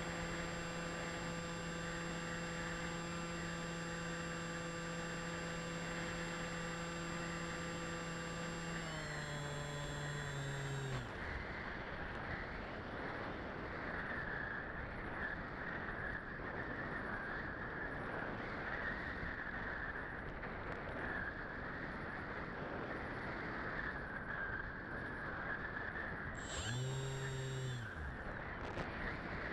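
Electric motor and propeller of an RC model aircraft, heard from the onboard camera, running at a steady hum. It drops slightly in pitch and shuts off about a third of the way in, leaving airflow rushing over the airframe as it glides. Near the end the motor comes on again briefly and cuts off.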